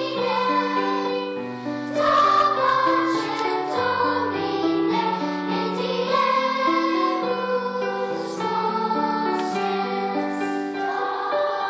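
Elementary school children's choir singing a song, with held instrumental accompaniment notes underneath.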